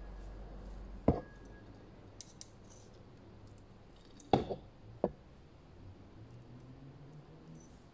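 Handling clicks of a steel ruler tapping against a titanium hammer head: one sharp click about a second in, then a quick pair and a third about four to five seconds in, with faint small ticks between.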